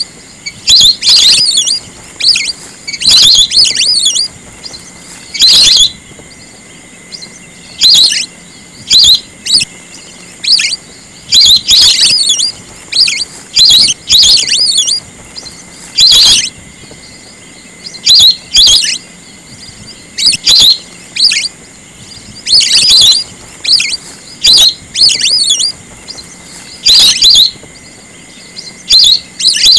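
Whistling ducks (belibis) giving loud, shrill whistled calls in short clusters every second or two, with several birds calling over one another. A faint steady high tone hums underneath.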